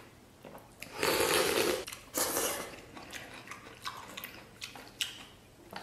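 A person eating noodles: two long, noisy slurps about a second in, then chewing and light clicks of chopsticks against a stainless-steel bowl.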